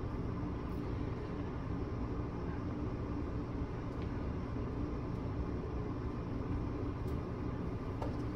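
Steady low mechanical hum over a constant rushing noise, with no change in level.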